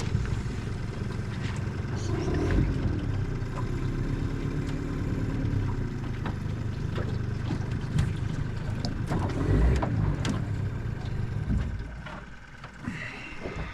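Small boat's outboard motor running steadily, its low hum dropping away about twelve seconds in as the boat slows or the motor is cut.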